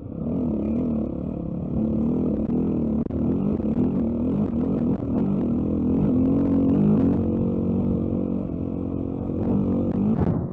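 Dirt bike engine running under way, its pitch rising and falling again and again with the throttle.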